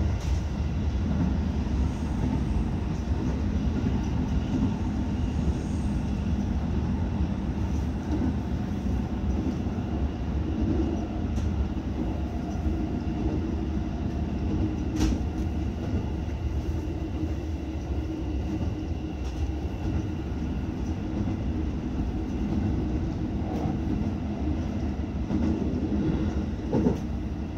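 Electric commuter train running along the track, heard from the front cab: a steady low rumble of wheels on rail, with one sharp click about halfway through.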